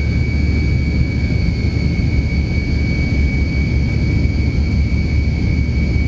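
Cabin noise of a Tupolev Tu-154M airliner climbing out after takeoff, heard from inside the cabin. Its rear-mounted Soloviev D-30KU-154 turbofans make a steady deep rumble with a thin high whine held at one pitch.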